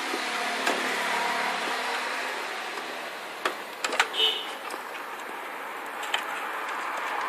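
A few sharp clicks and knocks in quick succession about three and a half to four seconds in, from computer power supply cable connectors being handled, over a steady hiss of background noise.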